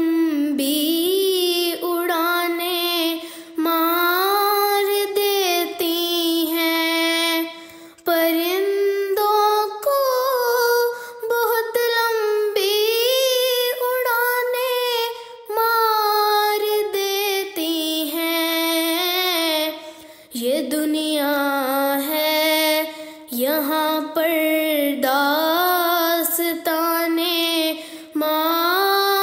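A single female voice singing an Urdu nazm in long, drawn-out melodic phrases. The held notes waver and glide, with brief pauses for breath between phrases and no instruments heard.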